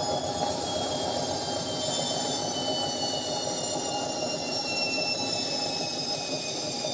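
Indesit 71252 washing machine slowing from a spin: a high motor whine falls steadily in pitch over a steady rushing noise as the drum winds down.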